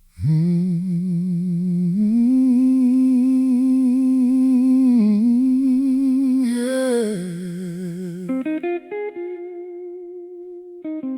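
Soul song intro: a voice hums a long wordless note with vibrato, stepping up in pitch about two seconds in and dipping briefly around five seconds. From about eight seconds a guitar plays plucked single notes.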